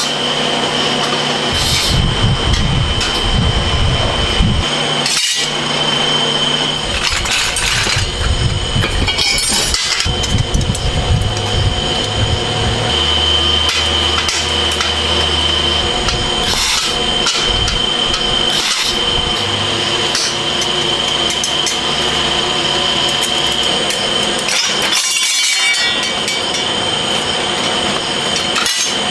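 Workshop noise: a steady high-pitched whine from running machinery, with scattered knocks and clinks of tools being worked.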